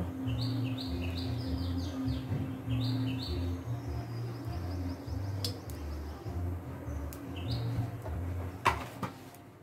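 A small bird chirping, a quick run of short high notes in the first three seconds and a few more near the end, over a low steady hum, with a couple of faint clicks.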